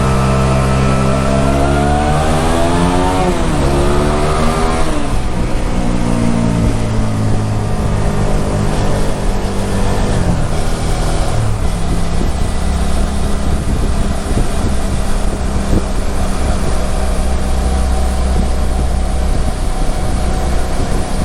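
Suzuki SV400S's 90-degree V-twin engine heard on board while riding. The revs fall over the first few seconds, rise and drop again about four to five seconds in, then hold lower and steadier under rushing wind and road noise.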